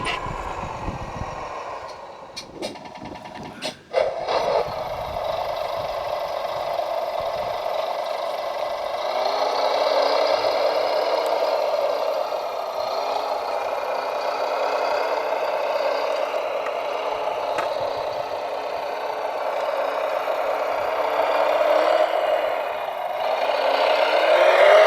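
Radio-controlled model construction vehicle running: a steady motor hum with a few sharp clicks about three seconds in, and the pitch gliding up and down near the end as the drive speeds up and slows.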